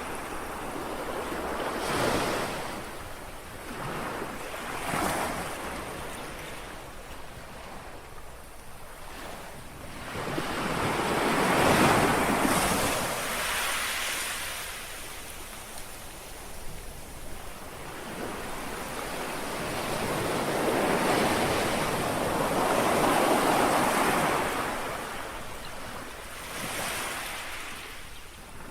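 Small sea waves lapping and washing on a shore, several swells of rushing water that rise and fall, the biggest one around 10–14 seconds in and another long one around 20–25 seconds in. A light wind can be heard on the microphone.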